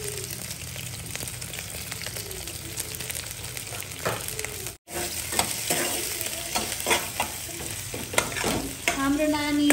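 Garlic and onion frying in a little hot oil in a pan, sizzling steadily while a spoon stirs and scrapes against the pan, with a run of short knocks in the second half. The sound cuts out for an instant about halfway through.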